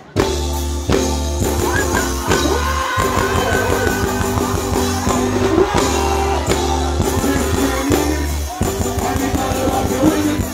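Loud reggae/dancehall music with a heavy bass line, drums and a singing voice, cutting back in abruptly just after a brief drop at the start.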